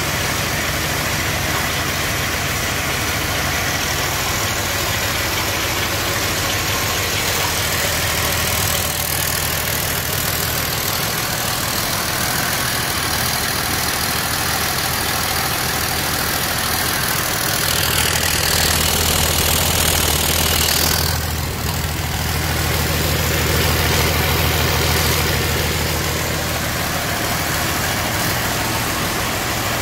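A Cummins ISB 5.9L inline-six turbodiesel running steadily on a test stand during a test run. It grows somewhat louder for several seconds past the middle, with a brief dip between.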